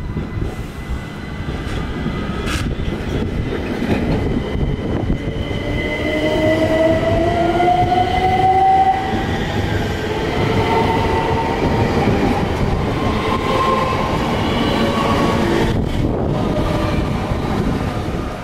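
Bombardier Electrostar electric multiple unit running on the rails, with a whine that rises in pitch over several seconds before levelling off.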